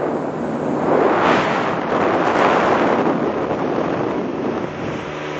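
Wind buffeting the microphone on a moving speedboat, over the rush of water along the hull and a low, steady engine hum.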